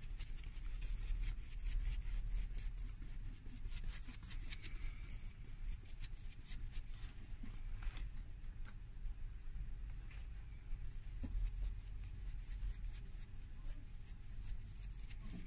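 Glue brush dabbing and scraping over a shoe's cork filler and leather welt: a steady stream of short, scratchy brush strokes.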